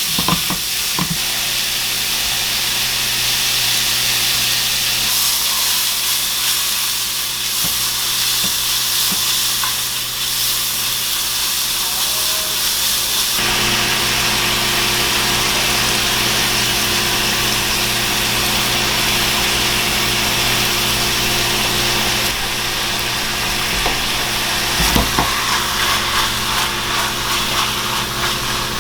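Beef noodle stir-fry sizzling steadily in a hot pan, the sizzle growing fuller about halfway through. A few knocks of a utensil against the pan come near the start and again near the end.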